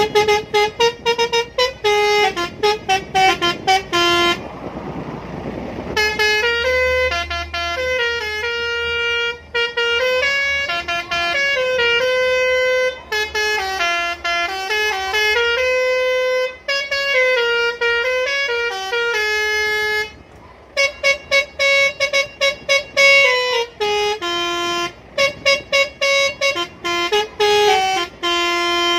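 Scania lorry's Basuri telolet multi-tone musical horn playing a tune. It opens with rapid staccato toots, pauses briefly about four seconds in, then plays a longer melody of held notes stepping up and down, and returns to quick toots near the end.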